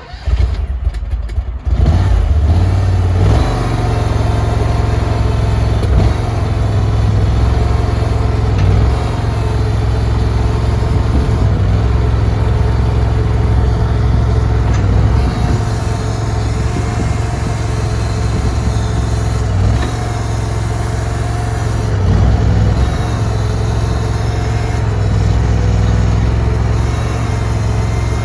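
Engine of a CFG KRW232 mini skid steer starting up within the first two seconds, then running steadily.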